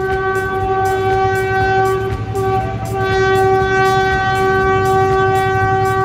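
Train horn sounding a long, loud steady note as the train approaches, with a brief break a little over two seconds in before it sounds again, over a low rumble.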